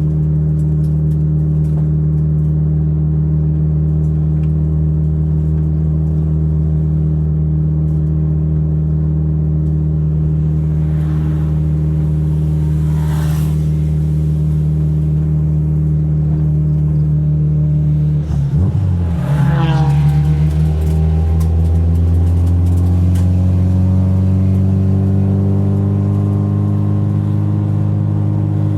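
Car engine running at a steady pitch, then about two-thirds through its note dips briefly and begins climbing slowly and steadily as the car accelerates.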